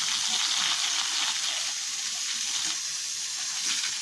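Garden hose spraying a steady stream of water onto plants and ground, a continuous hiss that eases off a little about halfway through.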